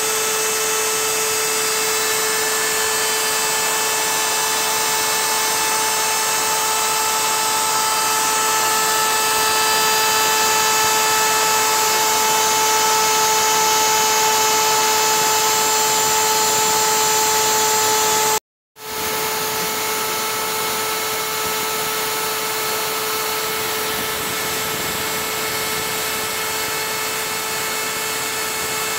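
CNC router spindle running with a steady high whine while a 3.1 mm end mill cuts the outline of a coaster blank through taped hard bamboo flooring. The sound drops out for a moment about two-thirds of the way through, then resumes.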